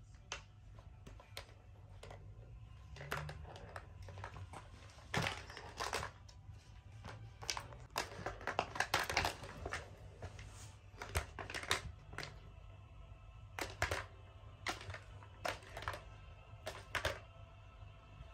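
Plastic cat track-ball toy clicking and rattling as a cat paws at it, the ball knocking against the plastic ring. The clicks come in irregular clusters, busiest in the middle.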